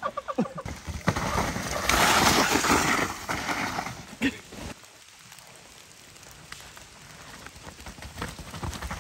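Mountain bike riding down a steep, wet, leaf-covered dirt trail: tyres rolling and sliding over mud and leaves, loudest about two to three seconds in, with a sharp knock a little after four seconds, quieter for a while, then building again near the end.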